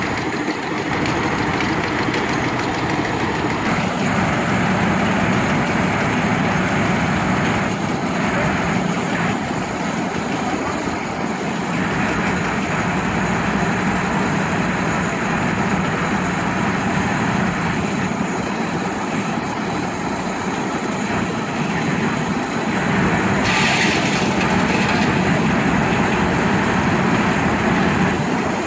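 Antique sawmill running steadily: its power engine and big circular saw turn at a constant speed, not yet cutting. About 24 s in there is a brief high hiss.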